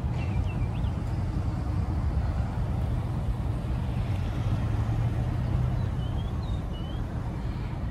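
Steady low rumble of vehicle engines, with a few short high chirps near the start and again near the end.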